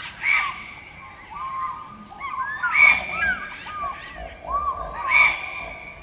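Birds calling: a busy run of short, gliding chirps, with three louder calls about two and a half seconds apart.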